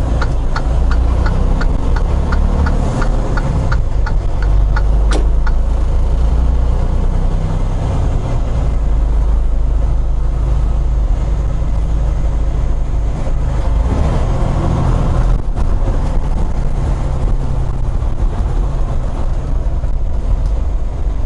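Semi truck's diesel engine running at low speed, heard from inside the cab as a steady low rumble. A quick ticking, about two and a half ticks a second, runs over it for the first five seconds or so.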